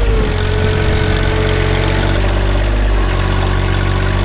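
John Deere 1025R compact tractor's three-cylinder diesel running steadily while its loader digs into a dirt berm, with a steady whine above the engine note.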